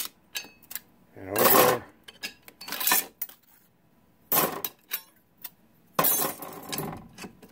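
Thin steel clutch discs of a Ford Model T transmission clinking and clattering as they are pried out of the clutch drum and set down, with about four separate metallic strikes roughly a second and a half apart.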